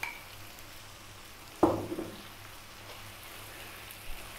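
Chicken pieces and potatoes frying in a pan with a quiet, steady sizzle. About a second and a half in, a sudden louder splash as crushed canned tomatoes drop from a bowl into the hot pan, fading within half a second.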